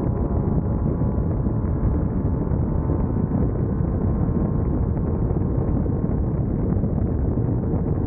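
Class 1600 off-road race car running steadily at speed: an even engine drone mixed with wind rushing over the onboard microphone.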